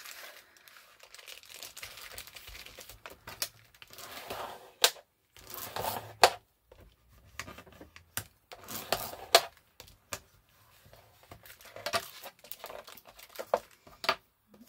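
Paper pages being handled and folded: rustling and crinkling, with several sharp taps and clicks as they are creased and set down.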